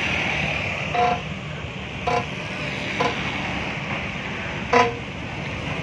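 Four short metallic clinks ringing out over steady road-traffic noise, the last one the loudest: metal tools striking parts at a dump truck's rear wheel.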